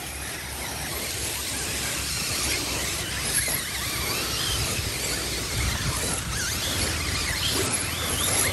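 A pack of RC buggies racing up a dirt hill, their motors whining with wavering pitch as they accelerate over loose dirt, growing louder as they come closer.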